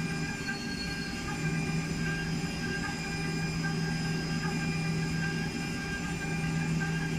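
CNC milling machine's high-speed spindle running steadily as the cutter machines a metal block, a steady whine over a low hum that briefly dips twice. The spindle head's sheet-metal cover adds to the noise, which the builder calls too loud.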